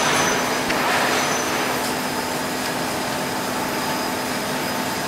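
GZK4240 double-column automatic bandsaw running: a steady mechanical hum with a constant low tone and a high whine over a noisy hiss.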